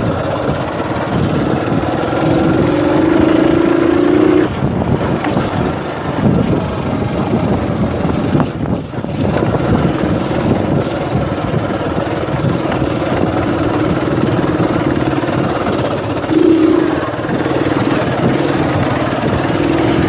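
Motorcycle engine running steadily under way on a dirt track, its note swelling for a couple of seconds about two seconds in and again near the end.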